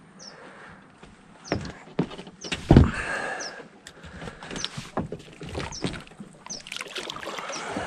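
Knocks and thumps on an aluminum boat's deck and hull as people shift their feet and move about, the heaviest thump about three seconds in.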